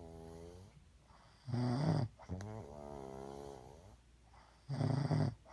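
A man snoring heavily in his sleep, in a zombie-like way: twice, a loud rasping snore is followed by a longer, quieter, wavering groan, repeating about every three seconds.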